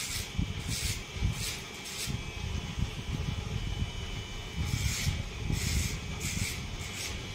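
Electric hair trimmer running through a boy's hair, with repeated short hissing strokes as it cuts.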